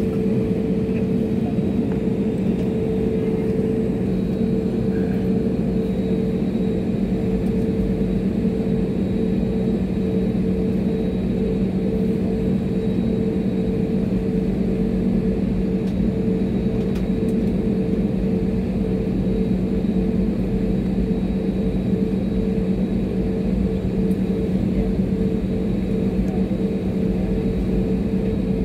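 Jet airliner taxiing, heard from inside the cabin: a steady drone from the engines at low taxi power, with a low hum and a second steady tone above it over a rumble, not rising or changing.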